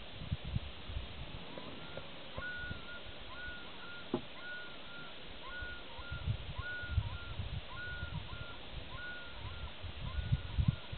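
Common loon chicks peeping: short, thin, repeated calls, about two a second, beginning about two seconds in. There is a single sharp click around the middle, and wind rumble on the microphone.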